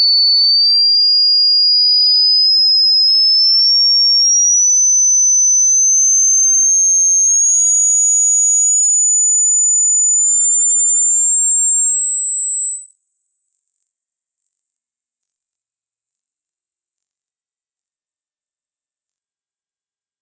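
A single pure electronic tone, loud and steady, climbing in small steps from a high pitch to a very high one. It is a speaker-cleaning sweep, played to shake water and dust out of a speaker that sounds distorted.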